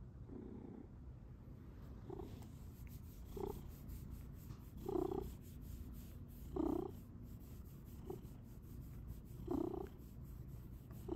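Domestic cat purring right against the microphone: a steady low rumble with a louder chirruping 'mrrp' swell about every second and a half.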